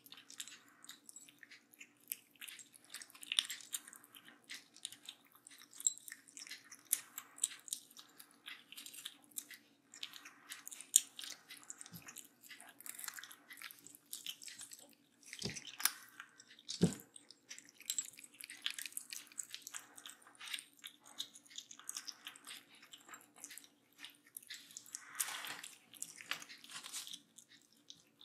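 Two young kittens crunching dry kibble from ceramic bowls: fast, irregular crisp crunching and clicking, with two dull knocks about halfway through and a faint steady hum underneath. The kittens are eating dry kibble on its own for the first time, a step in weaning.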